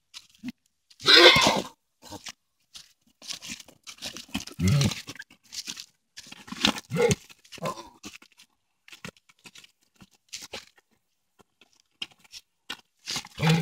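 A horse and a small dog scuffling in dry sandy dirt. Hooves and feet crunch and scuff in irregular bursts, mixed with short animal noises.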